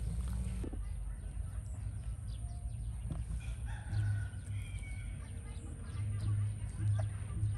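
A rooster crowing, a drawn-out wavering call about halfway through, over a low rumble that swells a few times.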